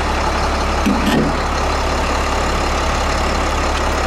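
International 4300's DT466 inline-six diesel idling steadily.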